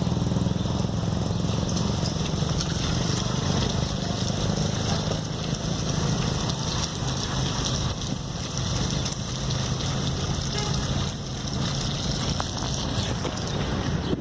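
An engine running steadily, with rushing wind noise over it.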